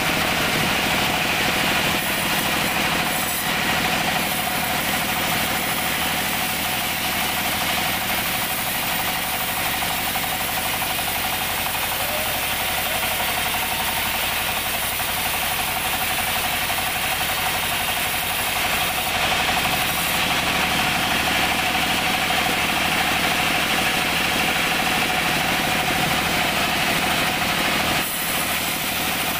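Band sawmill ripping a teak log lengthwise: a steady machine drone and whine from the running saw, with the hiss of the blade cutting through the wood. It gets slightly quieter about a second before the end.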